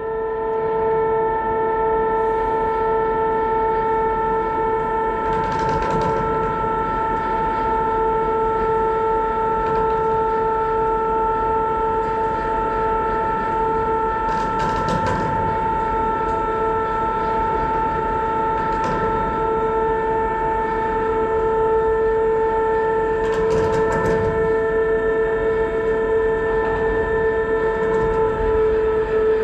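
Lifeboat davit winch running steadily as it hoists the enclosed lifeboat back up on its falls, a constant whine that holds one pitch. A few brief noises cut through it about 6, 15 and 24 seconds in.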